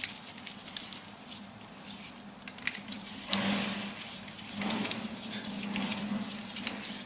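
Small scattered clicks and rustles of hands handling a power cable and the parts of a 16-amp plug during wiring. A low hum with a noisy rush comes in twice in the second half.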